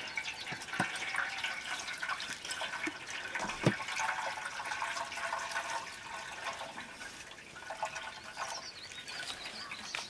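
Milky liquid poured in a steady stream from a bamboo tube vessel, splashing and trickling through a woven bamboo strainer into a metal pot, with a few light knocks.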